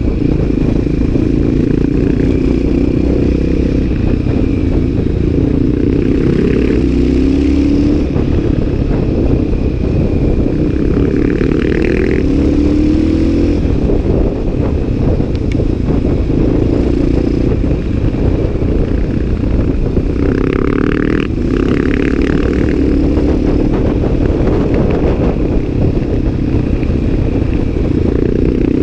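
CCM 604 supermoto's Rotax single-cylinder four-stroke engine pulling along under way, its pitch climbing and dropping back several times as the rider accelerates and shifts gear. Heavy wind rumble on the bike-mounted microphone.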